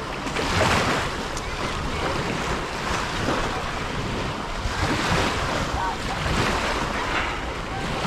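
Small sea waves washing onto the beach, the wash swelling and fading several times, with wind buffeting the microphone.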